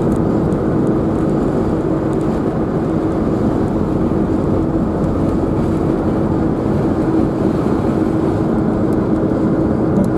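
Steady drone of a moving vehicle: a constant engine hum under road and wind noise.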